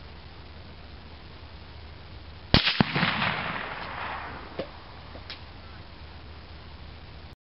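A .223 rifle bullet hitting an aerosol paint can: two sharp cracks about a quarter second apart, then a hiss that fades over about two seconds as the can sprays out pink paint. The sound cuts off suddenly near the end.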